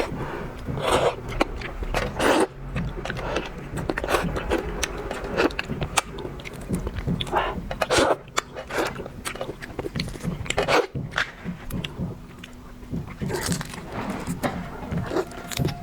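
Close-miked eating sounds: biting and chewing a large red devil shrimp, in irregular short clicks and bursts.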